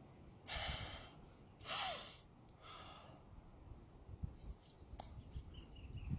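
A person breathing out heavily three times, sigh-like, about a second apart; the middle breath is the loudest.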